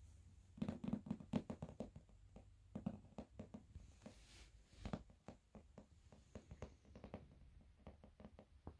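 Faint, irregular runs of quick taps and knocks as a kitten scrambles around and bats at a pair of chunky leather sandals, thickest about a second in.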